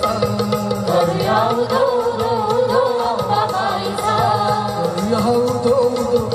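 Live band music for a Marathi devotional song to the goddess Ambabai: a wavering melody line over steady, regular drumming.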